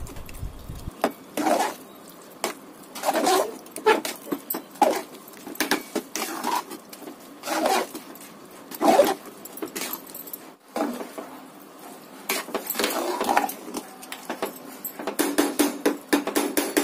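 A long-handled spoon stirring thick, wet bisibelebath (sambar rice) in an aluminium pressure cooker: a run of uneven stirring strokes, roughly one a second, coming quicker near the end.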